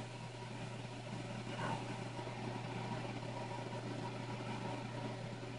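Steady low machine hum under a faint even hiss, with a brief faint tone about a second and a half in.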